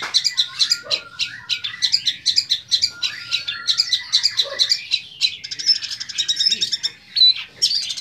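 Young long-tailed shrike (cendet) singing a fast, unbroken stream of short chattering and squeaky notes, many a second, with a brief pause near the end. Its song is built from phrases copied from other birds, its 'materi'.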